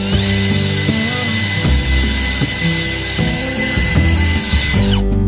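Cordless drill spinning up with a rising whine, running steadily for several seconds as it bores into the ceiling, then winding down and stopping near the end. Background music plays underneath.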